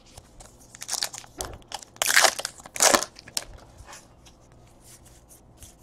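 Trading-card pack being opened and its cards handled: a few loud crinkling, rustling bursts about one, two and three seconds in, between light clicks of cards.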